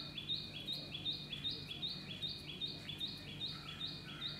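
A small bird's rapid, evenly repeated chirping, alternating a higher and a lower note at about four notes a second.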